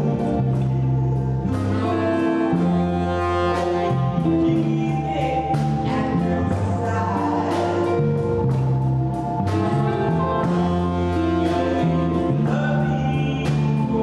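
Live small jazz band playing: saxophone lead over electric bass, electric guitar, keyboard and a drum kit with regular drum and cymbal strokes.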